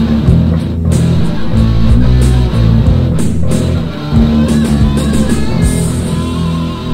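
Rock music recording: electric guitar, bass guitar and drums playing, with repeated cymbal hits. Near the end the drums stop and held notes ring on.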